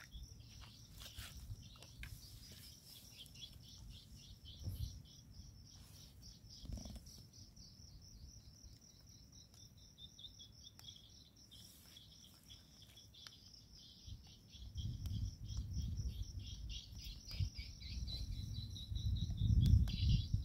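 Insects chirring in a continuous fast, high pulsing trill. From about two-thirds of the way through, wind buffets the microphone in low, irregular gusts that grow louder near the end.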